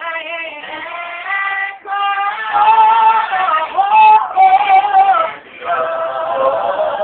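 Gospel vocal group singing, the voices holding long drawn-out notes in phrases of about a second, with brief breaks between them.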